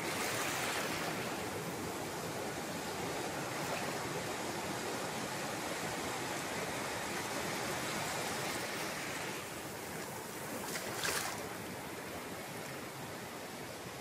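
Ocean surf breaking and washing up the sand in a steady rush, with a brief louder hiss about eleven seconds in.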